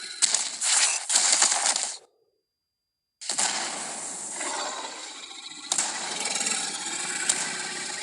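Carnotaurus sound effects from an animated series: harsh, noisy dinosaur vocal and scene sound with sharp clicks. It cuts off about two seconds in, and after about a second of silence a second clip of the same kind begins.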